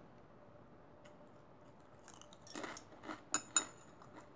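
Tortilla chips crackling and a metal chopstick clicking against a plate as a chip is picked up. A quiet stretch, then about two and a half seconds in a short run of crisp crackles and clicks, the two sharpest near the end.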